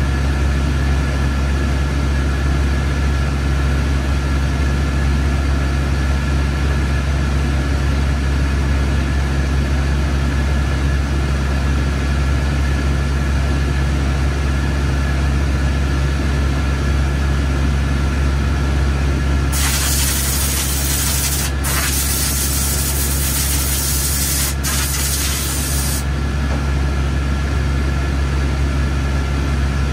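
Steady machine hum of IMAX 70mm projection-booth equipment, with a few faint steady whines above it. About twenty seconds in, a loud hiss starts and runs for about six seconds, with two short breaks.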